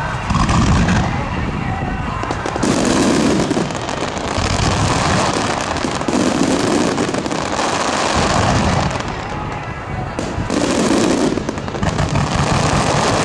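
Aerial fireworks shells bursting one after another, a deep boom about every two seconds over continuous crackling, with music playing under them.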